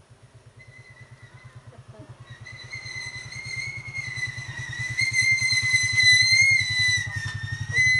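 A small engine, of the motorcycle kind, running with a fast even throb and growing steadily louder as it draws near, with a high whine over it that is loudest about six seconds in.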